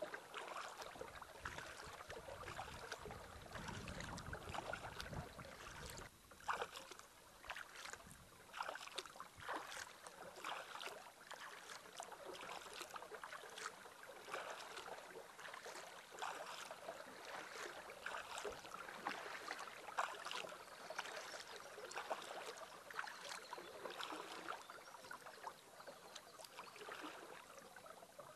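Canoe paddling: paddle strokes dipping into and pulling through lake water, with small splashes and drips at irregular intervals over a soft watery wash.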